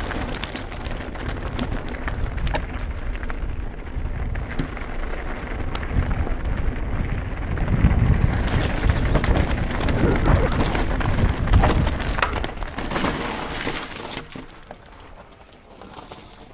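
Mountain bike riding fast down a rocky, gravelly trail: tyres crunching and rattling over loose stones and the bike clattering, with a constant low rumble of wind on the helmet camera's microphone. It fades over the last few seconds.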